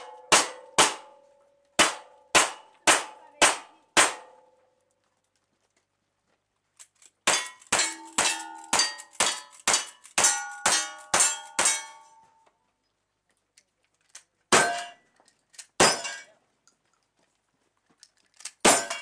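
Timed cowboy action shooting string: pistol shots at an even pace, a pause, then a fast string of about ten rifle shots, then three widely spaced shotgun blasts. Steel targets ring with a clang after the hits.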